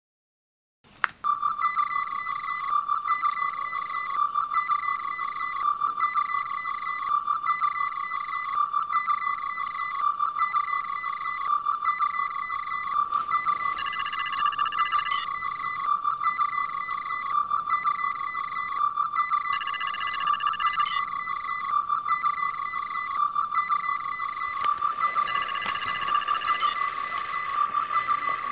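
Star Trek tricorder sound effect from a scratch-built prop tricorder: a click about a second in, then a steady warbling electronic tone under a repeating pattern of higher beeps, with a quick run of high chirps three times.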